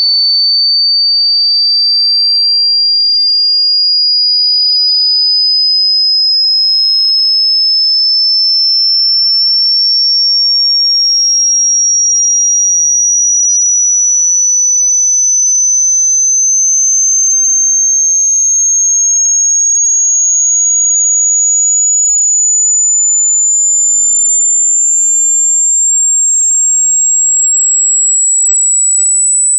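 Pure sine-wave test tone, high-pitched, rising slowly and steadily in pitch: part of a hearing-test frequency sweep from 20 Hz to 20 kHz.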